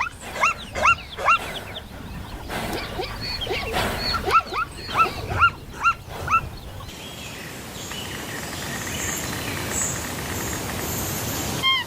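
A dog yelping: short, high calls that rise and then drop in pitch, in quick runs of several, over about the first seven seconds. After that comes a steady outdoor hiss with no calls.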